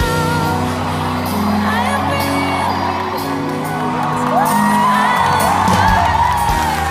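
Live concert music with steady held chords, and a voice that glides up and holds a high, wavering note in the second half, with whoops from the crowd.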